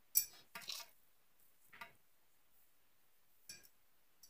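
A few brief kitchen handling sounds, clicks and soft rustles as shredded cabbage and a jar are handled. The loudest comes right at the start, and the rest are fainter and spread out.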